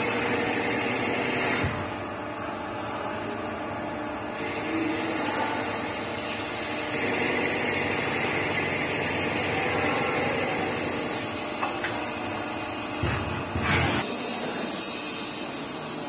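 CNC lathe turning a gunmetal (bronze) bush: the spindle running and the tool cutting, with stretches of loud high hiss and a whine that falls in pitch around ten seconds in. A short loud burst comes about thirteen seconds in.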